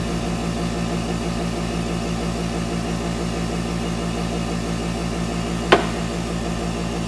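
Airbrush compressor running with a steady hum. A single sharp click comes near the end.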